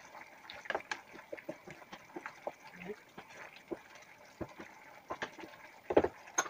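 Wooden spatula stirring chicken halang-halang soup in a nonstick frying pan: wet sloshing with irregular light knocks and scrapes against the pan, and a cluster of sharper knocks about six seconds in.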